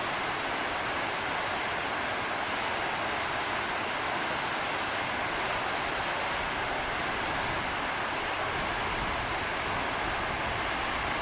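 Steady rushing of a river running high and fast with rainwater from Hurricane Matthew, an even, unbroken hiss with no change in level.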